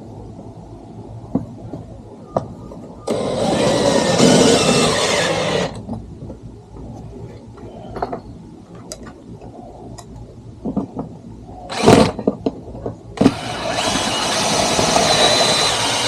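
Cordless power driver running twice, about three seconds each time, driving self-tapping Torx screws through a plastic fender flare into the body panel. Between the two runs there are short clicks and knocks of handling.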